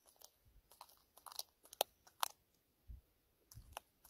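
Armadillo chewing and biting into a snake, an irregular run of sharp crunches and clicks, the two loudest about halfway through.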